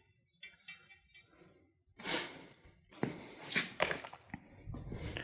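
Faint background music, with a short scraping sound about two seconds in and a few light knocks after it as tools are handled on the table top.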